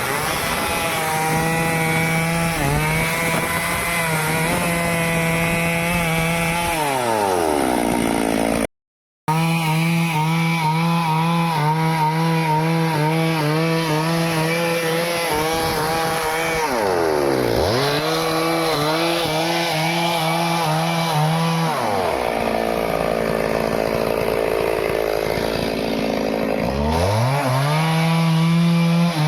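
Stihl chainsaw cutting wood at high revs. Its pitch drops sharply and climbs back several times as the throttle is let off and opened again, and once it sits low for a few seconds before revving back up near the end. There is a brief total break about nine seconds in.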